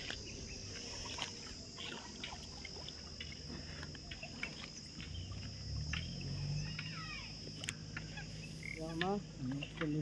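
A steady, high-pitched insect drone, with a few short chirps and clicks scattered through it and faint voices in the background.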